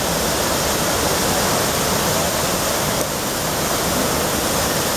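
The Trevi Fountain's cascades of water pouring over its travertine rockwork into the basin: a steady, even rush of falling and splashing water.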